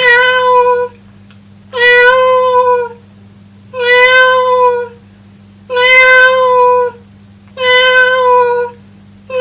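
A man mimicking a house cat's meow: long, plaintive begging meows, five in a row about two seconds apart, each held at a steady pitch and dipping slightly at the end. This is a cat crying innocently to be fed.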